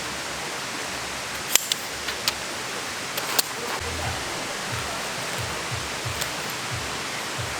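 Steady, even rushing noise with a few sharp clicks in the first half, and soft low thuds repeating about twice a second in the second half.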